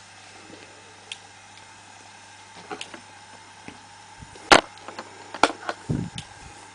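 Kato Unitrack turntable turning: scattered sharp clicks from its mechanism, the loudest about four and a half seconds in, over a faint steady whine.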